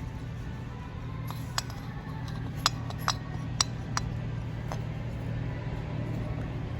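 Nissan Wingroad engine idling with a steady low hum, with a series of about seven sharp metallic clinks over it in the first part.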